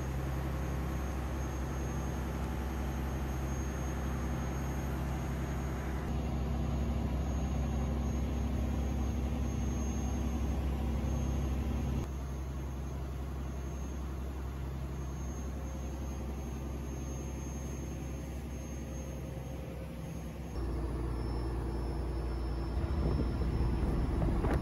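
Boat engine running steadily under way, heard from on board as a low, even drone with the rush of water and wind over it. The tone and level change abruptly a few times, at cuts between clips.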